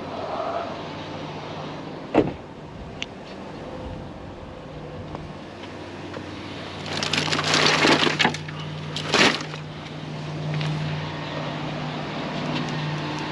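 Vehicle engine idling with a steady low hum, broken by a sharp click about two seconds in, a loud noisy crunch lasting about a second midway, and a knock shortly after.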